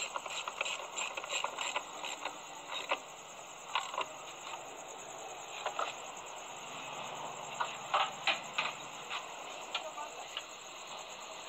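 Ratchet wrench clicking as it turns the bolts on a car's upper radiator support, with a quick run of clicks at first and then scattered clicks.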